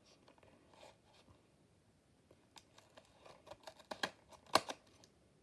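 Plastic blister packaging of a Bakugan toy being handled and opened: a run of small clicks and crinkles starting about halfway through, with two sharper snaps near the end.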